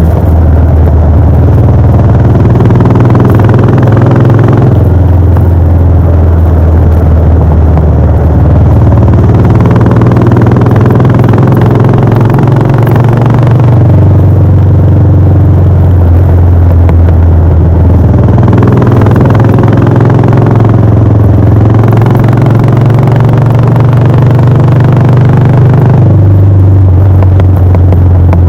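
Royal Enfield Bullet 500's single-cylinder four-stroke engine and exhaust running on the move, a loud steady thump whose pitch steps up and down several times as the throttle and speed change.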